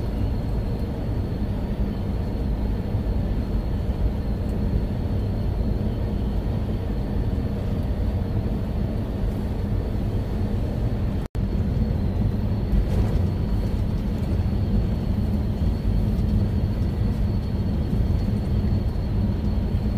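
Inside a semi-truck's cab at highway speed: the diesel engine drones steadily under road rumble, with a faint high whine on top. The sound cuts out for an instant about eleven seconds in.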